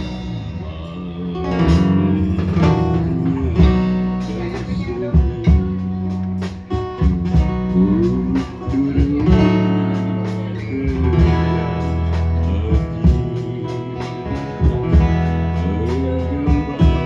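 Live band music: a man singing through a microphone over strummed guitar and a strong bass guitar line.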